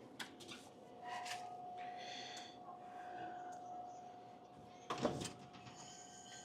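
Small clicks and rustles of products and parts being handled while a vending machine is restocked, with one loud knock about five seconds in, over a steady faint hum.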